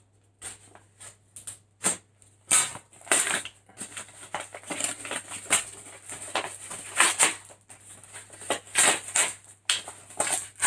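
Brown paper mailer being torn open by hand: an irregular string of rips and crinkles, busier after the first couple of seconds.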